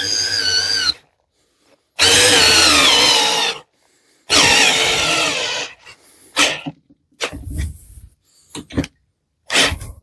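Parkside PBSA 12 D4 12V cordless drill driver's motor running in three bursts of a second or so, its whine dropping in pitch as it loads up. Near the end come several short blips of the trigger as the screw won't go further in.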